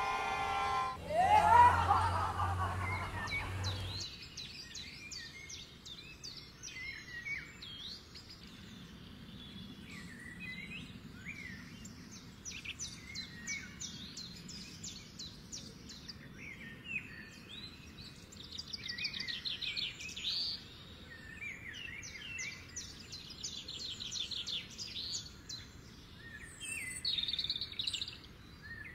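Many birds chirping and calling in the trees, in quick runs of short, high repeated notes, over a faint low background rumble. A song with music cuts off about four seconds in, and the birds carry on from there.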